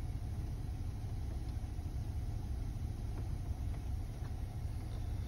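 Steady low rumble of a BMW 5 Series car running, heard from inside the cabin.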